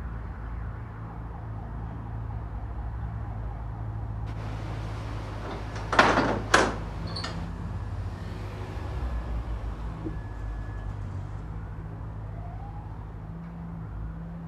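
A steady low hum under room noise, broken about six seconds in by two loud knocks about half a second apart.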